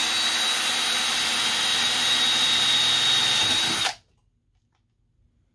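Cordless drill running at full speed, its bit cutting through the steel wall of an ammo box, with a steady high whine over a hiss of cutting noise. It stops abruptly about four seconds in.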